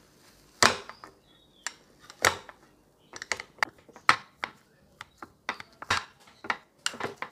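Wire potato masher pressing down on a boiled potato and knocking against a glass baking dish: about a dozen irregular knocks, one or two a second.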